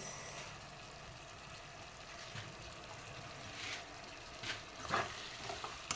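Potatoes in a sweet soy chilli sauce simmering faintly in a pan: a soft, steady bubbling hiss, with a few light ticks in the second half.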